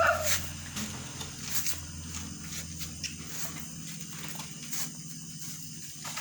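Three-week-old puppies scuffling about, making light scattered taps and shuffling, over a steady low hum.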